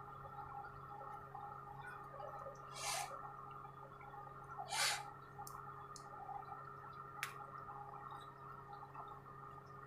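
Faint handling noises over a steady low hum: two short swishing rubs, about three and five seconds in, and a single sharp click a little after seven seconds, as parts of a phone holder and tripod mount are handled and fitted.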